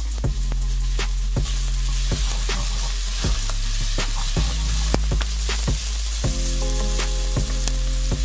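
Diced onion sizzling in hot oil in a non-stick frying pan while being stirred with a wooden spoon, with scattered short clicks of the spoon against the pan. Background music with a steady bass runs underneath, and a melody comes in near the end.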